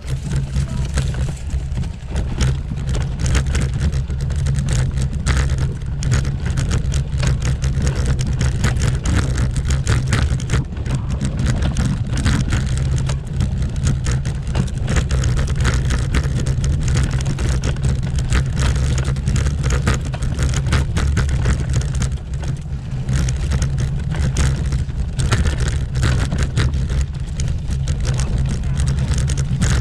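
Bicycle riding over cobblestones (pavé): a continuous heavy rumble with a dense, fast rattle as the tyres and frame shake over the stones.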